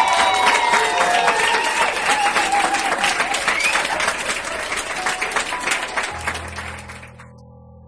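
A crowd of guests clapping rapidly, with a few excited cheering voices over the applause. The clapping fades out near the end as soft music comes in.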